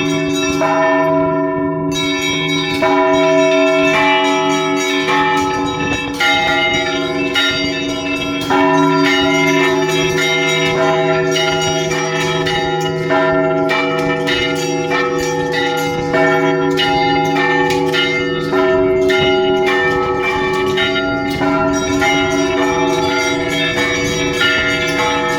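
Orthodox church bells ringing a festive Easter peal. Several smaller bells are struck rapidly, several strikes a second in repeating patterns, over the long ringing tones of the larger bells.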